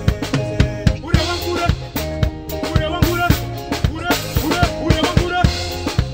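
A live band playing an upbeat groove: a drum kit with regular kick and snare hits over bass guitar, with electric guitar and keyboard.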